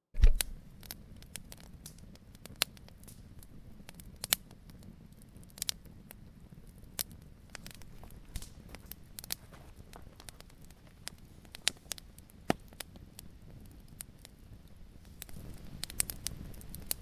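Campfire burning: wood crackling and popping at irregular moments over a low steady hiss, with a loud pop at the very start.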